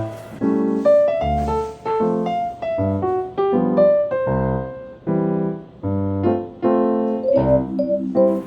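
Background music led by piano, with bass notes and chords on a steady beat.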